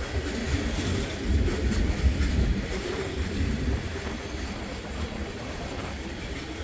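Norfolk Southern freight cars rolling past: a steady low rumble of steel wheels on rail, swelling louder for about a second, a second and a half in.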